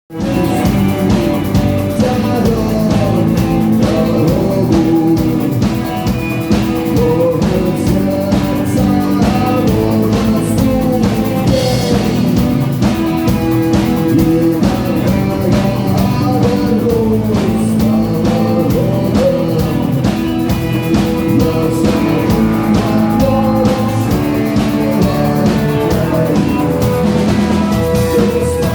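Rock music with drums, guitar and singing, playing at a steady, loud level.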